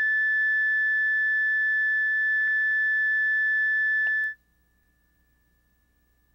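Steady high-pitched line-up tone at the head of a broadcast videotape, played over the identification slate. It cuts off suddenly a little over four seconds in, leaving near silence.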